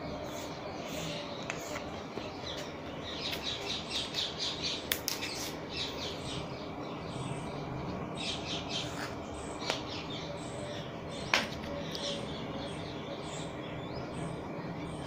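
Small birds chirping repeatedly in the background, busiest a few seconds in. A few sharp clicks and taps come from plastic rulers being moved and laid down on the cloth, the loudest a little past the middle.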